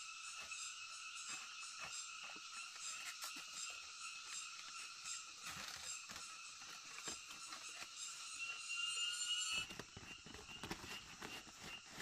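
Steady high-pitched chorus of forest creatures calling, with scattered light knocks and clicks. Near the end the sound changes abruptly, with more knocking and rustling.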